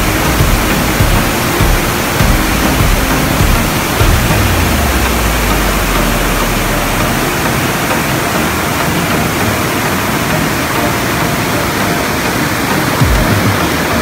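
Steady rushing of a rocky river's rapids, water pouring over and between boulders.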